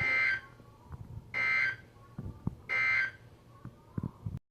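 Emergency Alert System end-of-message code: three short, buzzy data bursts at a high pitch, about a second and a half apart. They mark the end of the alert broadcast. Faint clicks and low static lie between the bursts, and the sound cuts off just before the end.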